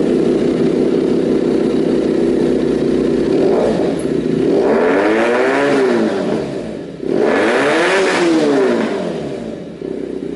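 Benelli 302's parallel-twin engine running through an aftermarket Akrapovic / SC Project-style slip-on muffler: idling steadily, then revved up and let fall back twice, each rev rising and dropping smoothly over a couple of seconds, before settling back to idle near the end.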